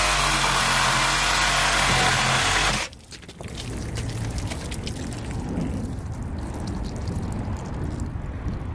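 Handheld power cutting tool running under load as it cuts into a cast-iron drain stack: a loud, steady grinding noise over a low motor hum, which stops abruptly about three seconds in. Quieter background with light clicks follows.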